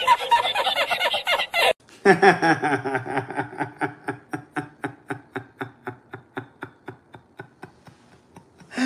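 Two men laughing, one after the other. First a hard, wheezing laugh that cuts off abruptly under two seconds in; then, after a short gap, a long run of quick rhythmic 'ha' pulses, about five a second, growing fainter and slightly slower toward the end.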